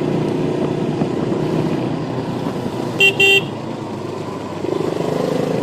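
KTM Duke 200 single-cylinder engine running on a test ride. A horn beeps twice briefly about three seconds in. Near the end the engine note grows louder and rises as the bike accelerates.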